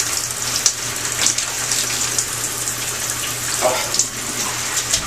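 Shower running, its water spraying and splattering irregularly, over a steady low hum.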